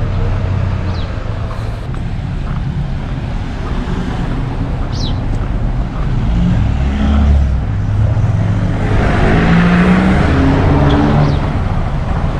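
A car drives past on the street, its engine and tyre noise building to a peak about nine to eleven seconds in, over a steady low rumble.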